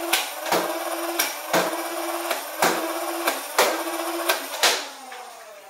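Dart Zone Adventure Force Spectrum flywheel blaster revved and fired in quick succession: a steady motor hum with about ten sharp shots, roughly two a second, the hum dipping at each shot. The flywheels spin down near the end.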